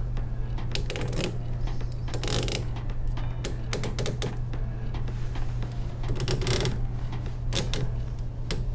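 Irregular small clicks and rustles of hands pulling toothed rubber timing belts through a plastic belt clamp on a 3D printer's X carriage, over a steady low hum.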